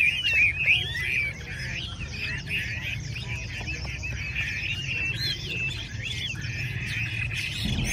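Many caged Chinese hwamei singing at once: a dense chorus of rapid, gliding whistled phrases, loudest in the first second, over a steady low rumble.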